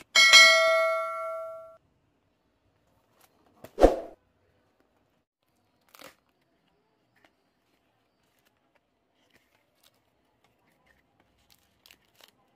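A bell 'ding' sound effect rings out and fades over about a second and a half, the kind that goes with a subscribe-button animation. About four seconds in comes a single sharp rip as the cardboard chocolate box is torn open, then faint rustling of cardboard and foil wrappers.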